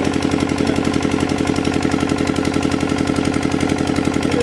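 Small engine-driven water pump running steadily, draining the pond, with a rapid, even pulsing beat.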